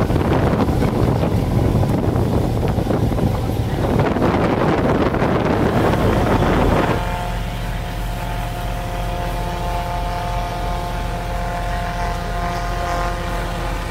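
Slow river boat's engine running steadily under way, with wind buffeting the microphone and rushing water over it at first; about seven seconds in the wind and water noise drop away, leaving a steady engine hum.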